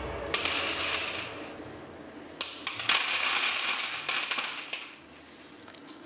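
Wood pellets poured onto a galvanized metal floor tray, rattling against the metal in two pours: a short one near the start and a longer one of about two seconds in the middle.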